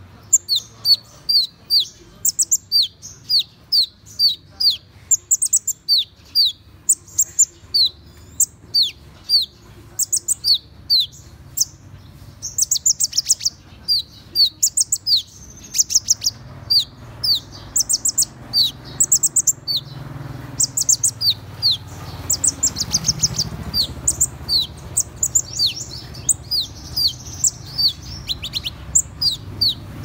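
Van Hasselt's sunbird (purple-throated sunbird) calling: a long run of short, thin, high notes, each sliding down in pitch, a few every second. About halfway through, the notes come faster and overlap over a low background rumble.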